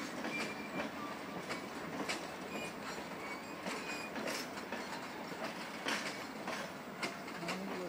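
Passenger train coaches rolling across a bridge overhead: a steady rumble with irregular sharp clacks as the wheels pass over rail joints, and a few brief high wheel squeals in the first couple of seconds.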